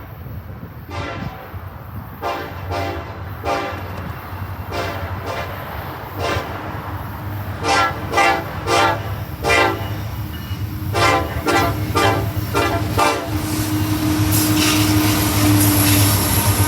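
Locomotive air horn played in a long run of short toots, some single and some in quick clusters, over a steady low rumble. Near the end the tooting stops and a steady rushing hiss of the passing train takes over.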